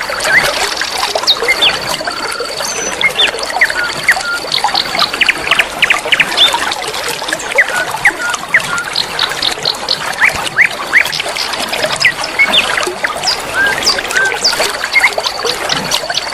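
Flowing river water with many small birds chirping and whistling over it in quick, short calls. A thin, steady, high trill starts and stops a few times.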